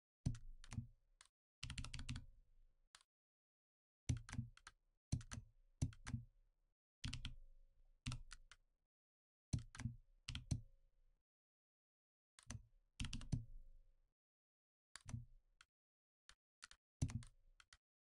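Computer keyboard keystrokes and key taps, in short irregular runs of several taps with silent pauses between, each tap with a dull low thud.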